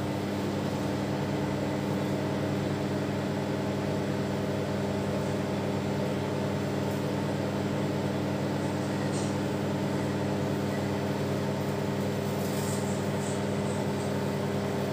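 IFB convection microwave oven running on its microwave-plus-grill setting: a steady electrical hum with a whir. A few faint high ticks come in the second half.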